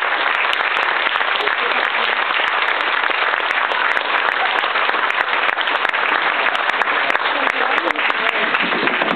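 Audience applauding: many hands clapping in a dense, steady wash for an award winner.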